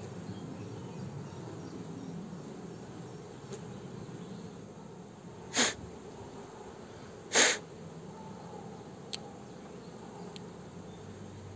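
Honeybees buzzing steadily around an open hive, with two short, sharp puffs of hiss about two seconds apart a little after halfway.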